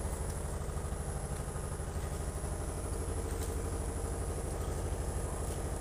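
An engine idling steadily: an even, low hum that holds at one level throughout.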